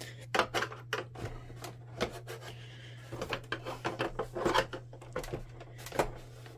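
Plastic side panel of a Canon PIXMA TS5120 inkjet printer being worked off its clips: irregular clicks, knocks and scraping of plastic on plastic as it is pried and pulled free.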